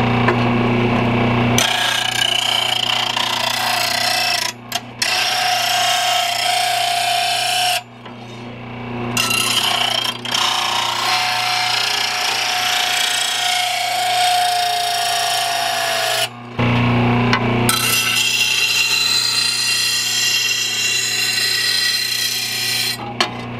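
Oregon 1/3-horsepower bench blade grinder running, its motor humming, while a steel lawn mower blade is pressed against the wheel to sharpen the edge: a long, steady grinding rasp with a ringing tone in it. The grinding breaks off briefly about two-thirds of the way through, leaving only the motor hum, then starts again for another pass.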